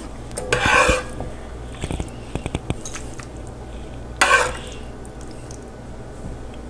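Metal ladle scooping thick chili out of a red enamel pot into a bowl. There are two louder scoops, about a second in and again about four seconds in, with small clicks of the ladle between them.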